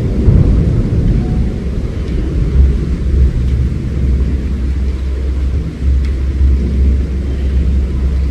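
A loud, steady low rumble with no clear pitch that carries on throughout.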